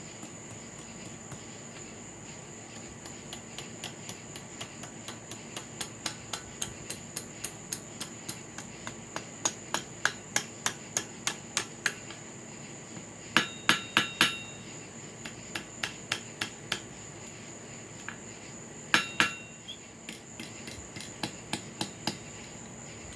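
Small blacksmith's hammer striking a hot steel cut nail on the anvil in quick, even blows, about three to four a second and growing harder, with a few heavier blows that ring out briefly about halfway through and again later, then lighter taps. A steady high chirring of crickets runs underneath.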